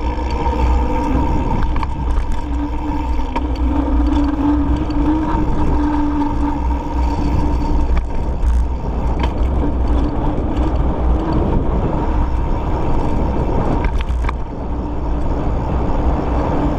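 Wind buffeting the handlebar-mounted camera's microphone as a mountain bike rolls downhill, over a steady hum from the tyres, with a few sharp clicks and rattles from the bike.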